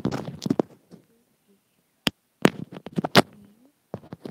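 Close-up mouth sounds on an earphone cable's inline mic: wet nibbling and licking clicks and pops, mixed with the rubbing and tapping of fingers handling the mic. A dense cluster comes at the start, then a short lull, a single sharp click about two seconds in, and another run of clicks just after.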